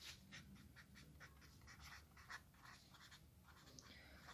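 Faint scratching of a ballpoint pen writing words on paper backed by a clipboard, in a quick, irregular run of short strokes.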